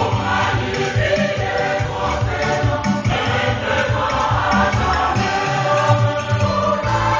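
Large gospel choir singing an upbeat praise song together, with a steady low beat pulsing underneath.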